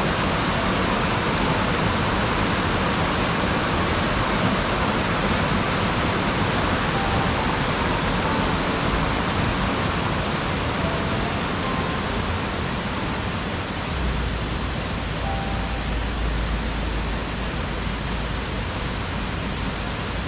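Waterfall: a steady rush of falling water. About fourteen seconds in, a deeper low rumble joins it.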